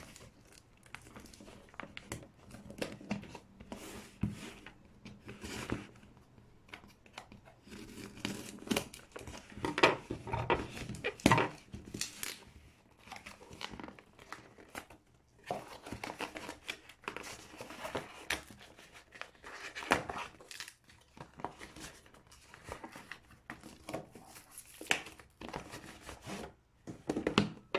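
Cardboard shipping boxes being opened by hand: packing tape and paper tearing and packaging crinkling in irregular bursts, with several louder rips.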